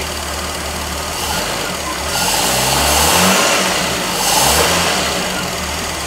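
Ford 200 straight-six idling on its first run after being rebuilt, the idle slightly uneven; twice the sound swells with a rush of hiss, in the middle and again about a second later.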